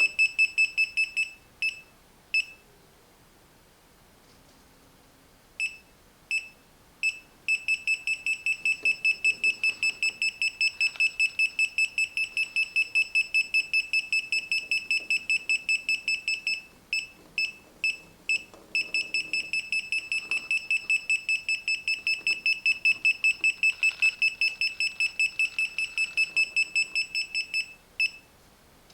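KAIWEETS KM201 multimeter's non-contact voltage detector beeping as it senses live voltage in wiring: a few scattered high-pitched beeps, a pause, then long runs of rapid beeps, about four a second, with brief breaks.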